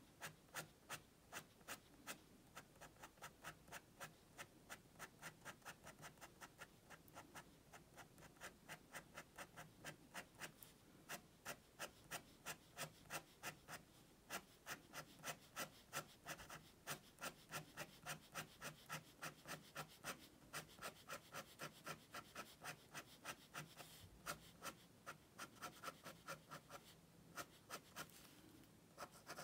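Fine-liner pen hatching on textured paper: a rapid, even run of short, faint scratching strokes, about three a second, as shading is built up line by line.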